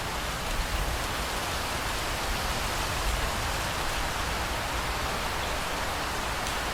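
Steady rain falling and pattering on surfaces, a dense even hiss without a break.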